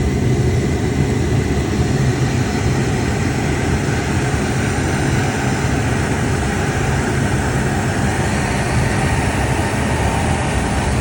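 High-pressure boiler burner firing after ignition: a loud, steady rushing sound with a low hum underneath, unchanging throughout.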